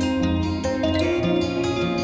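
Background instrumental music, steady pitched notes with chord changes.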